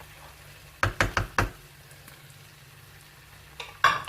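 A cooking spoon knocking against cookware: four quick knocks about a second in and one more near the end, as thick creamy sauce is added to the pan.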